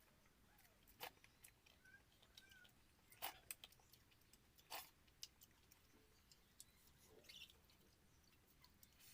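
Near silence with scattered faint clicks and ticks, and a brief faint chirp about two seconds in.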